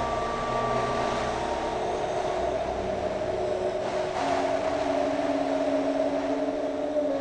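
Animated film soundtrack: a steady rushing noise under held droning tones, with a new low held tone coming in about four seconds in.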